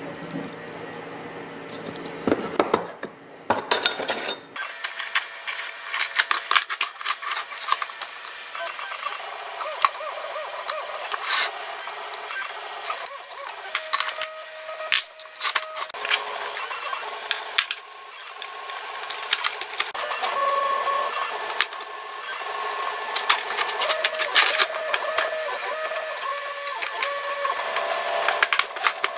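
Busy, rapid clicking, tapping and rattling of small plastic and aluminium parts and a screwdriver being handled while a 3D-printer frame is put together. A few knocks come in the first seconds; after about four seconds the sound turns thin and high-pitched, a fast chatter of ticks with some wavering high tones.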